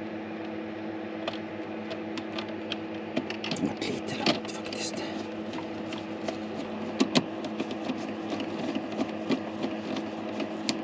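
Small clicks and scrapes of a screwdriver and stranded wires working in the screw terminals of a Victron IP22 battery charger, with a few sharper ticks about four, seven and nearly eleven seconds in, over a steady low hum.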